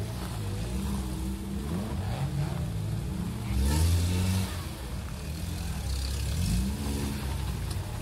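Off-road 4x4's engine revving hard as it climbs a steep muddy slope, its pitch rising and falling with the throttle, loudest in a surge about halfway through.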